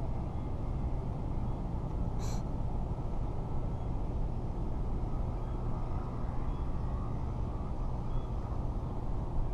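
Steady low outdoor rumble, with one short high click a little over two seconds in.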